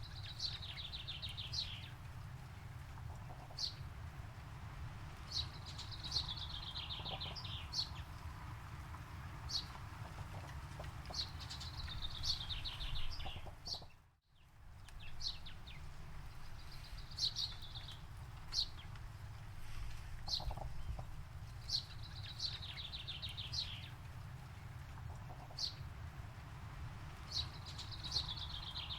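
A songbird singing the same short phrase over and over, about every five to six seconds: a few single high notes, then a fast falling trill. Under it runs a steady low rumble. About halfway through, everything fades out to silence for a moment and comes back.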